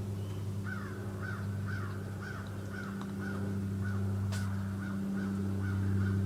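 American crow cawing, a long, even series of harsh caws about two a second.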